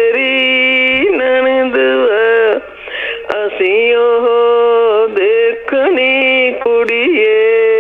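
A woman singing a Punjabi folk song solo, holding long notes that bend and slide, with a short pause about two and a half seconds in.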